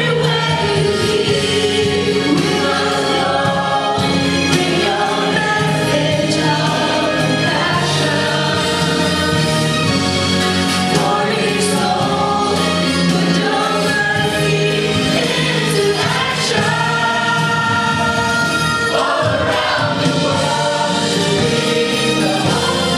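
Mixed church choir singing a Christian song in sustained chords.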